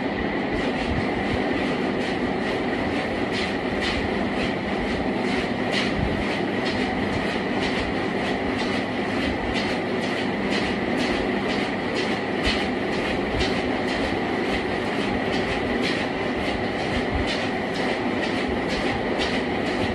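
Motorised treadmill running with a steady whine, and the regular thud of footfalls on its belt about twice a second.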